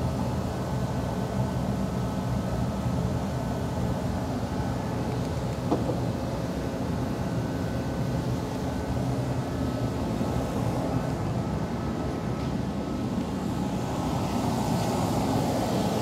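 Steady mechanical hum of background machinery, with one faint click about six seconds in.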